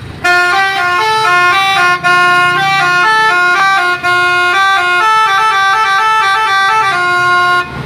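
Indonesian bus 'telolet' musical air horn playing a tune of quickly changing notes, in three phrases with brief breaks about two and four seconds in, stopping just before the end, over the low rumble of the bus.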